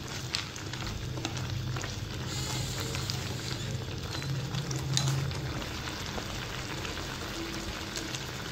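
Thick tamarind chutney bubbling and sizzling in a non-stick pan with many small pops as it cooks down, while a plastic spoon stirs it. It is at the reducing stage, starting to thicken over a raised flame.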